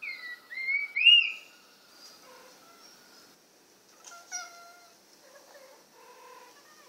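Cat vocalising: a quick run of high chirps that fall and rise in pitch, the loudest a little after one second in, then a short meow about four seconds in and softer, lower meows near the end.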